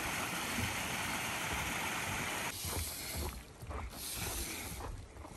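Small mountain stream trickling and splashing over rocks between snowbanks, a steady rush of water. About two and a half seconds in it cuts off, leaving a quieter stretch of scattered thuds and scuffs of footsteps on a wooden boardwalk.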